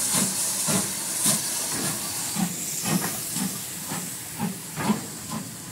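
Steady steam hiss from steam escaping beneath the moving coaches of a steam-hauled train, with a low knock about twice a second from the coaches rolling along the track.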